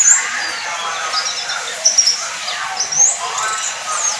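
White-eye (pleci) singing: a run of quick, high twittering chirps with short rising and falling whistled notes.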